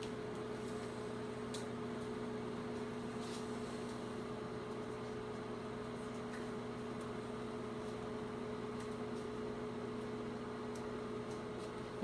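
GE countertop microwave oven running mid-cycle: a steady hum with fan noise underneath.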